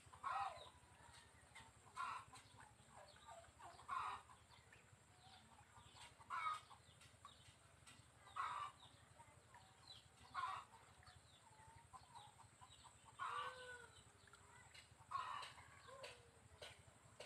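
Chicken clucking in short calls about every two seconds, with fainter chirps in between.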